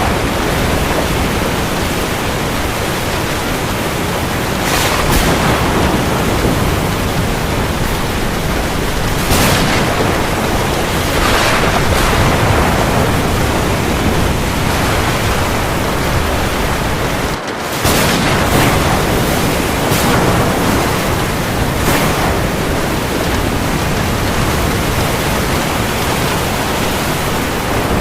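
Heavy rain falling on the sea: a dense, steady hiss that swells briefly every few seconds, with a short sudden break about two-thirds of the way through.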